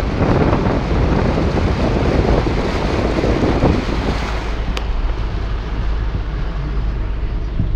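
A car ploughing through deep floodwater: the steady rush and splash of the bow wave and spray against the wheel arch and side of the car, over the low running of the engine, with wind buffeting the microphone. The rushing eases about four seconds in.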